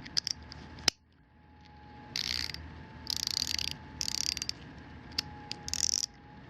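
SabreCut MRSC03 72-tooth stainless steel mini micro ratchet being worked back and forth: four short bursts of fine, rapid pawl clicking about a second apart, after a few single clicks in the first second.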